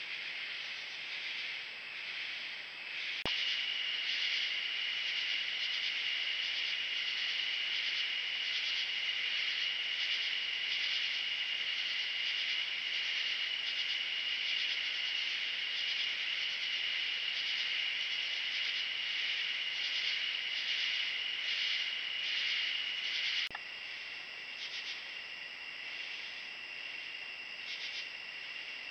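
Night chorus of crickets and other insects: a steady high-pitched trill with a fast pulsing chirr over it. The chorus changes abruptly in pitch and loudness twice, about three seconds in and near the end, where recordings from different nights are cut together.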